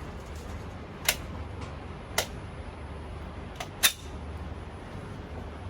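Four short, sharp cracks over a steady low hum: one about a second in, one about two seconds in, then two close together near the end, the last the loudest.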